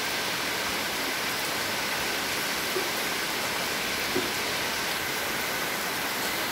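Heavy rain pouring steadily onto paving, puddles and roofs, an even unbroken hiss. Two faint brief sounds stand out slightly near the middle.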